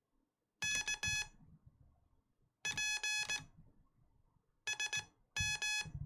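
Morse code sidetone from a hand-sent key: four quick groups of dits and dahs on one steady beep tone, spelling the call sign KP3L, with soft clicks of the key underneath.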